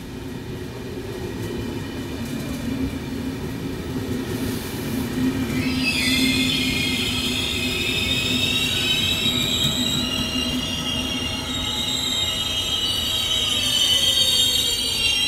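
Double-deck electric commuter train rolling slowly past the platform, a low rumble growing louder. About five and a half seconds in, a high metallic squeal of several shifting tones starts from its wheels and carries on.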